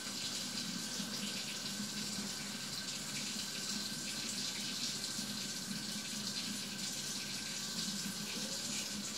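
Steady rushing hiss with a faint steady high tone and a low hum beneath it, unchanging throughout; no distinct handling sounds stand out.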